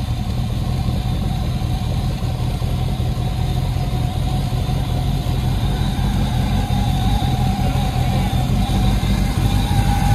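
Lifted Toyota 4Runner's engine running under light load as it crawls through deep snow, steady, with the pitch climbing a little near the end as it is given more throttle.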